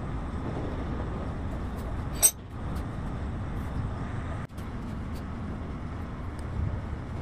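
Steady low background rumble in a workshop, with one sharp click a little over two seconds in and a brief dropout of the sound about four and a half seconds in.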